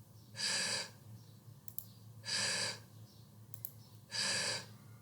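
The voiceless 'th' consonant /θ/ said alone three times by a recorded voice: three short breathy hisses of air between tongue and teeth, about two seconds apart, with no voicing.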